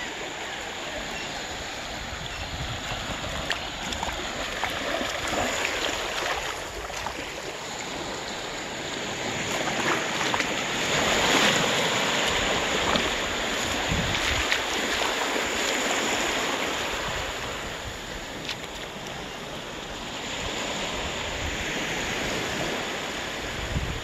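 Small sea waves washing and breaking gently on a sandy, rocky shore, the surf swelling louder about ten seconds in and again near the end.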